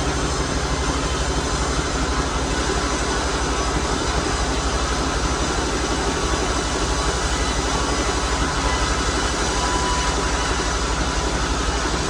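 Sawmill machinery running steadily: a dense, even mechanical noise over a fast low pulse.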